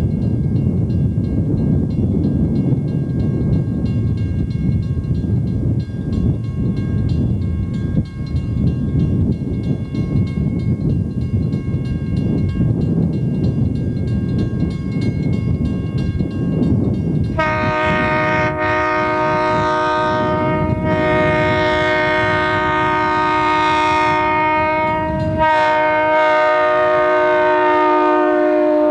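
Burlington Northern diesel freight locomotives approaching with a steady low engine and rail rumble. A bit over halfway through, the lead locomotive's air horn sounds several notes at once in a long blast, breaks off briefly near the end, and sounds again as the locomotive passes.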